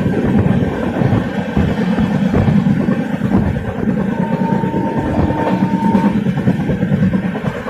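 Train running on the rails: a steady, loud rumble of wheels on track with irregular clatter.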